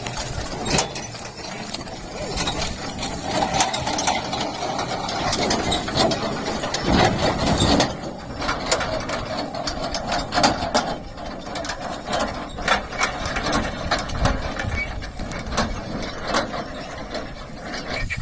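Bullock cart on the move: a steady rumble with many irregular clicks and knocks from the cart and the bullocks.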